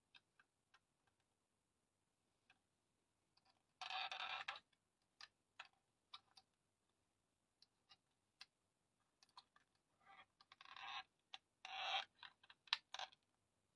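Scattered light clicks and ticks from a handheld sewing machine's plastic parts being handled and its wheel turned by hand, with a few brief louder scratchy bursts about four seconds in and again near the end.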